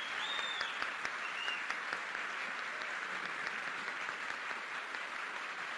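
A large audience applauding steadily, with a few high-pitched calls from the crowd near the start.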